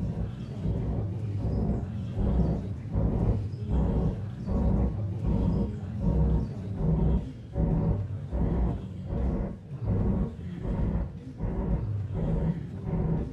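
A low rumbling soundtrack that swells and fades irregularly, about once a second.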